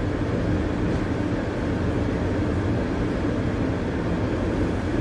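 Steady low rumble and hum inside the cabin of a TTC Bombardier Flexity Outlook low-floor streetcar, the car's running noise with its ventilation blowing.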